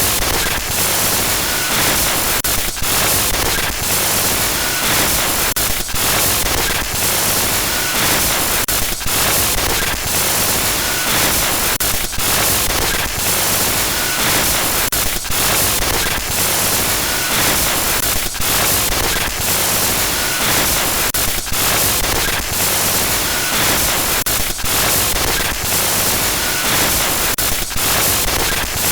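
Harsh glitch static noise, a loud hiss across the whole range that keeps cutting out for split-second dropouts at irregular intervals, several times a second at moments.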